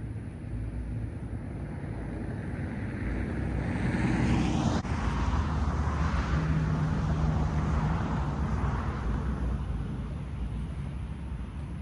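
A road vehicle driving past, growing louder with its pitch rising until it is closest about five seconds in, then dropping in pitch and fading away.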